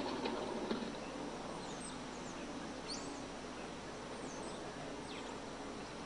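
Steady outdoor ambience with a few faint, high bird chirps scattered through it. A flurry of rapid taps dies away in the first second.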